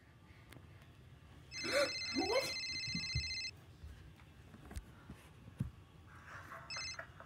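Electronic telephone ring: a steady, high, multi-tone ring that sounds for about two seconds from about a second and a half in, with a short repeat near the end. A brief rising glide overlaps the start of the first ring.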